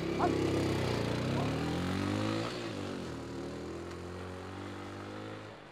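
Small motorcycle engine pulling away and accelerating. Its pitch rises, drops briefly about two and a half seconds in, then climbs again as it fades into the distance, and it cuts off suddenly near the end.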